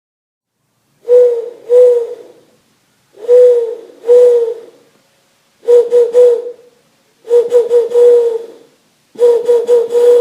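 Owl hooting: five runs of short, clear hoots, two to four hoots in each run, about two seconds apart.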